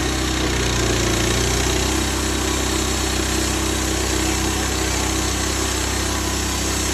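Gas-engine bandsaw sawmill running steadily while it mills a log, the engine drone under a dense hiss of the blade and machine; the engine note shifts slightly about two seconds in.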